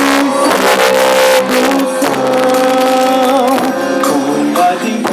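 Festa junina music: held melody notes, a few wavering in pitch, over repeated percussion strikes.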